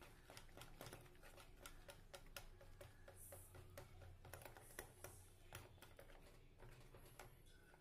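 Faint, quick, irregular clicking of a wire whisk against a plastic mixing bowl as pancake batter is beaten.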